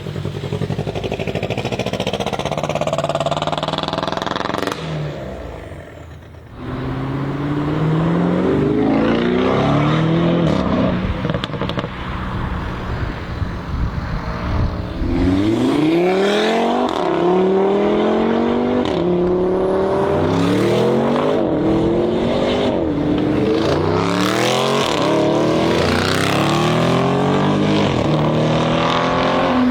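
High-performance car engine revving hard and accelerating, its pitch climbing and dropping back again and again as it shifts up or is blipped. There is a brief quieter lull about five to six seconds in.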